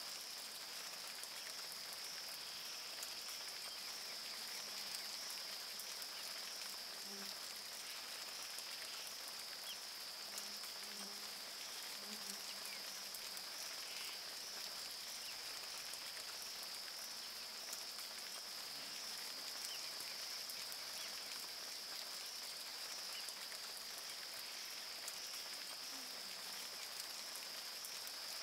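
Rain falling on the river and the surrounding rainforest, with a steady, high-pitched insect chorus over it.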